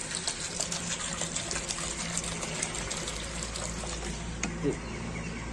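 Water pouring from a plastic bottle into a small water dish, splashing steadily and thinning out after about three and a half seconds; a single knock near the end.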